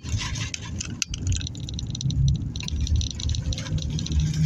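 Road noise inside a moving car: a low tyre rumble with continual light rattling from the car's interior.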